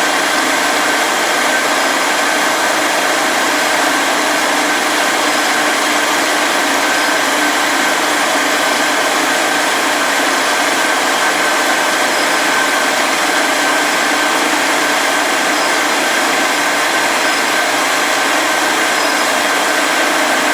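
4-axis CNC milling machine running steadily through a semi-finishing pass: a constant spindle whine over continuous cutting and motor noise.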